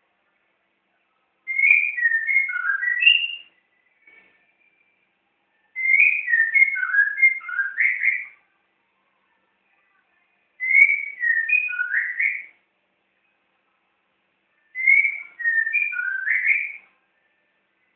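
White-rumped shama singing: four phrases of clear, quick whistled notes, each about two seconds long, separated by short silences.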